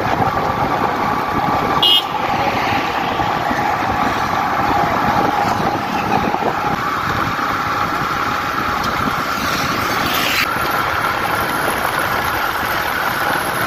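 Steady road noise from riding in a moving motor vehicle, with the engine running and a faint constant whine. A brief high-pitched sound comes about two seconds in.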